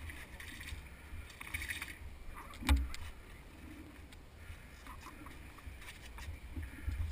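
Wind buffeting the microphone as a steady low rumble, with one sharp knock a little under three seconds in and a few faint clicks.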